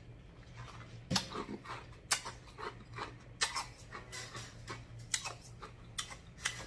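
Wet lip smacks and mouth clicks, irregular and a few a second, from a man tasting a drink he has just sipped, over a faint steady low hum.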